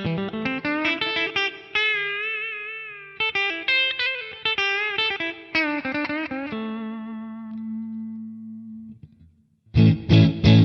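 Fender Stratocaster electric guitar played through a Boss Katana 50 MkII amp's clean channel with added reverb, recorded direct over USB. It plays a run of picked single-note lines with string bends, lets one note ring out and fade, and after a short pause strikes a few chords near the end.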